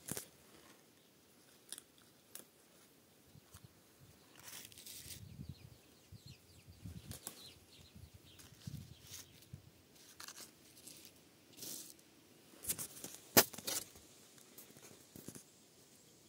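Faint close-up rustling of vine leaves and handling noise, with scattered light clicks. A sharp click about 13 seconds in is the loudest sound.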